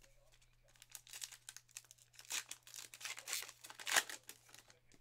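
A Topps Archives baseball card pack's wrapper crinkling and tearing as it is ripped open by hand: a run of sharp crackles starting about a second in, loudest near the end.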